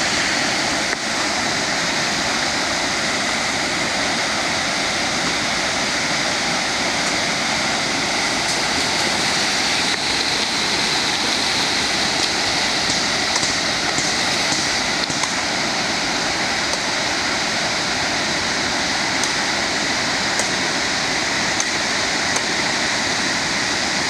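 Waterfall: falling water making a steady, loud rushing noise that holds even throughout.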